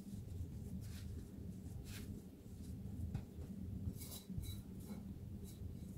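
Hands patting and pressing soft scone dough on a floured wooden board: a scatter of faint, brief pats and brushes, most bunched about four to five seconds in, over a low steady hum.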